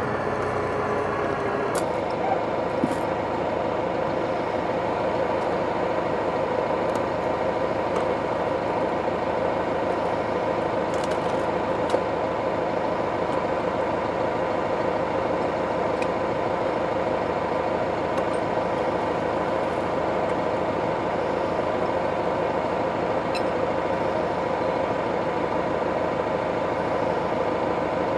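Tractor engine running at a steady speed, with a few faint knocks.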